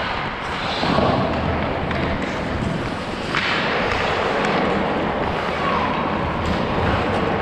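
Hockey skate blades scraping and carving across rink ice, with sticks and puck clacking and one sharp knock about three seconds in.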